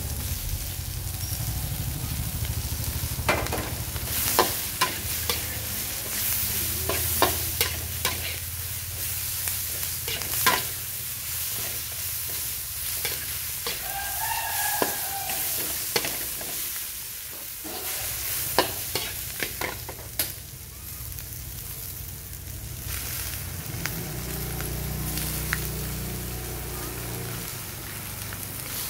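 Shallots, chilies and garlic sizzling in hot oil in a metal wok, with a metal spatula scraping and clinking against the pan as they are stir-fried. The clinks come thick and sharp through the middle stretch and thin out near the end, leaving mostly the sizzle.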